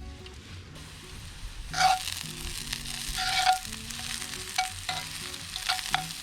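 Paella ingredients sizzling in a cast-iron skillet while a utensil stirs them, with about half a dozen sharp scrapes against the pan, some ringing briefly.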